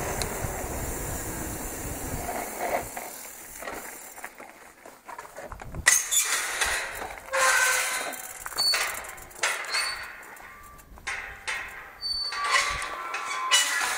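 A galvanised steel field gate is unlatched and swung open. There is a sharp metal clank about six seconds in, then irregular clanks, rattles and short squeaks from its latch, hinges and bars. Before that comes a few seconds of steady wind and tyre noise from the e-bike rolling to a stop.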